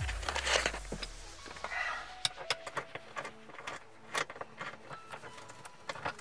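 Metal clicks and clinks of a 12 mm socket wrench working loose a rear seat mounting bolt, a few irregular clicks a second, after a knock at the start.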